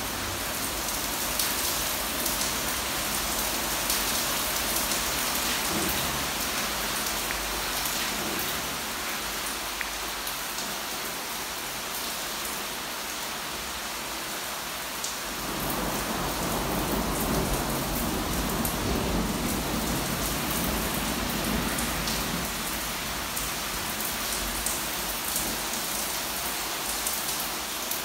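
Heavy thunderstorm downpour, rain pouring steadily with many small drop ticks. About halfway through, a deeper rumble of thunder swells up and slowly eases off.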